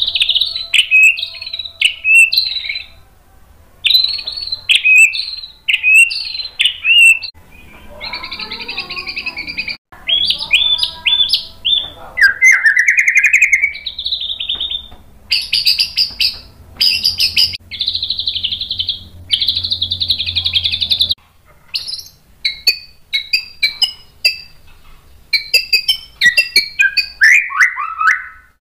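White-rumped shama (murai batu) singing a long, varied song: fast runs of whistled and chattering notes, several long harsh rattling trills around the middle, and a falling slur near the end.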